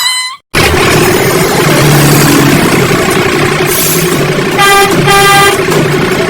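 Motor vehicle engine running steadily, with a horn tooting twice, the second toot longer, about four and a half seconds in.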